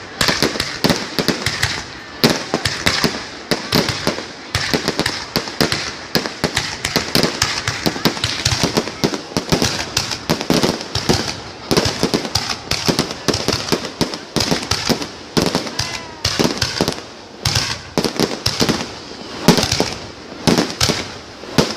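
Fireworks display: a dense, unbroken run of bangs and crackles, several each second.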